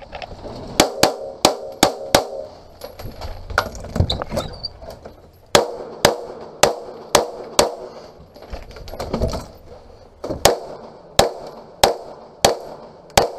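Semi-automatic pistol fired in rapid strings: a dozen or more sharp shots, mostly in quick runs of two or three, with short pauses between the runs.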